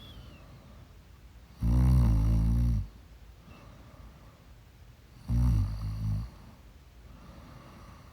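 A person snoring: two loud, deep snores about four seconds apart, each lasting about a second, the first about a second and a half in and the second near the two-thirds mark, with much quieter stretches between.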